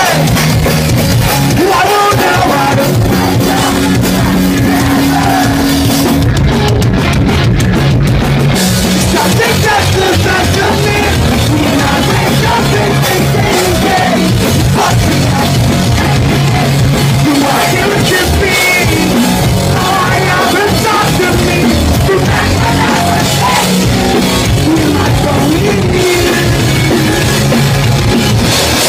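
Pop-punk band playing live: distorted electric guitars and drums with the singer shouting the vocals into a microphone, loud throughout.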